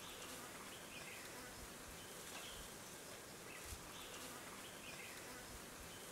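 Faint outdoor ambience: a steady low hiss with short, high, falling chirps repeating about once a second.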